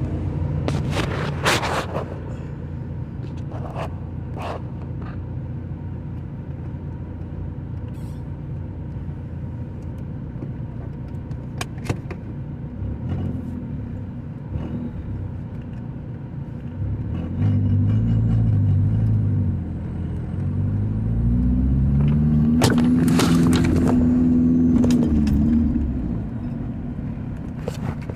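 Audi TT's 1.8-litre turbocharged four-cylinder idling steadily, then revved twice: a short rev about two-thirds of the way in, and a longer, louder one held for several seconds near the end. A few light clicks are heard along the way.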